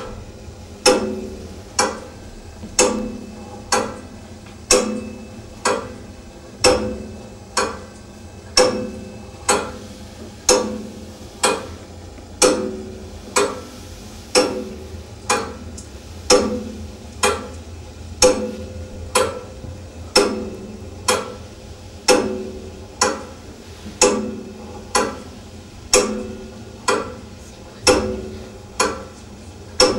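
Clock ticking, one loud knock about every second, each with a short ringing tail, over a low steady hum.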